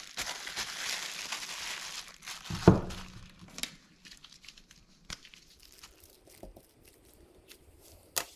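Plastic packaging crinkling as it is handled, then a single sharp knock about two and a half seconds in, followed by light scattered clicks and taps.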